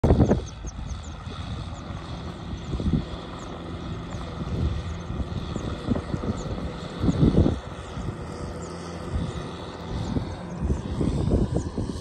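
Wind rumbling on the microphone in gusts, strongest at the start and about seven seconds in, over the faint steady drone of a distant farm tractor's engine.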